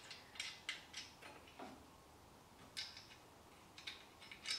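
Faint, irregular metallic clicks and ticks of hand tools and fasteners on a turbocharger's exhaust outlet flange as it is fitted and tightened down. The clicks come in a quick cluster over the first second and a half, then sparse, with a few more near the end.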